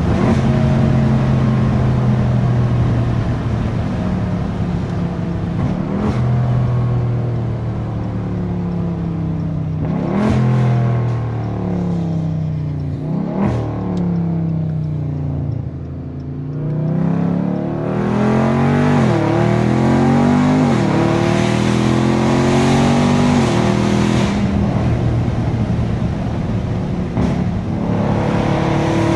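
Catless, tuned 6.4-litre 392 HEMI V8 of a Dodge Scat Pack pulling through the gears, with sharp cracks on the shifts. About halfway through it eases off with the pitch falling, then pulls hard again through two quick upshifts before settling to a steady run.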